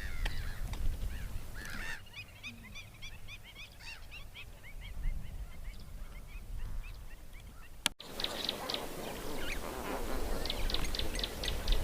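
A flock of flamingos calling: many short, goose-like honks overlapping one another. The sound breaks off sharply about eight seconds in and resumes louder and denser.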